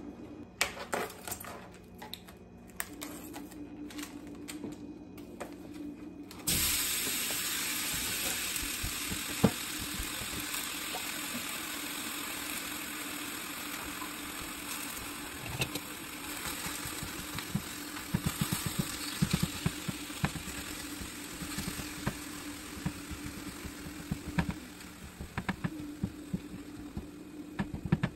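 Ground turkey sizzling in a hot, oiled skillet. The sizzle starts suddenly about six seconds in as the meat goes into the pan, then runs steadily. In the second half a spatula scrapes and clicks against the pan as the meat is broken up and spread out.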